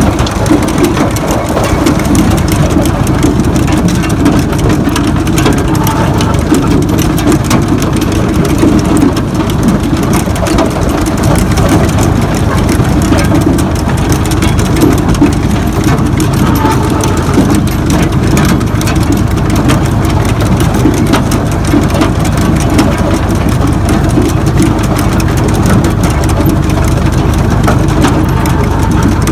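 Tractor-drawn cup-chain potato planter running: a dense, steady rattle and clatter from the chain of cups lifting seed potatoes out of the hopper, over the steady running of the tractor's engine.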